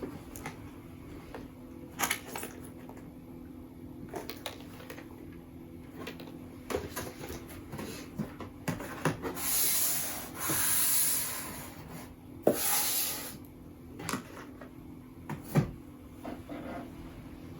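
Objects being handled at close range: scattered clicks, knocks and rubbing, with three longer scraping, rustling noises about two-thirds of the way through.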